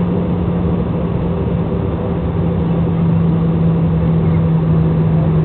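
Jet airliner cabin noise: a steady rush of air with a strong, even engine drone that sinks slightly in pitch over the seconds.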